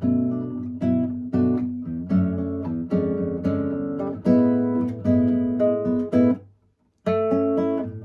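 Solo classical guitar playing a samba, plucked chords and melody notes in a lively rhythm. About six seconds in the strings are cut off sharply for a half-second silence before the playing resumes.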